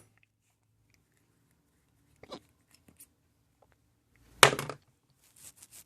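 A few small clicks and one sharp knock about four and a half seconds in, from crocodile clips and test leads being unclipped and handled on a workbench.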